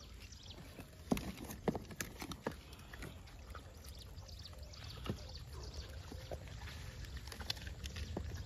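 Apples knocking and bumping as they are lifted out of a cardboard box by hand and set down, with a handful of sharp knocks in the first few seconds and lighter, scattered ones after. A steady low rumble runs underneath.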